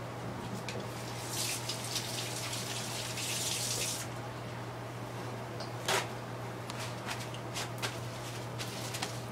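Water running from a sink tap as hands are washed under it, the flow stopping about four seconds in, followed by a few light clicks and knocks.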